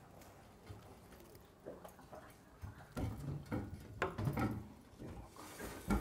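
Light knocks and taps as a red sea bream and a kitchen knife are handled on a wooden cutting board: sparse at first, then a cluster of handling knocks, ending in a sharper knock.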